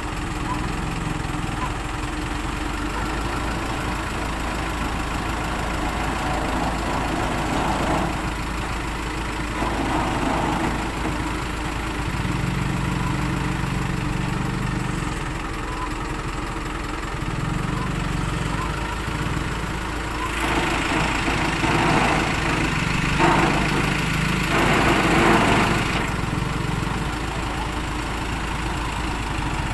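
An engine idling steadily, with a louder, harsher stretch from about 20 to 26 seconds in.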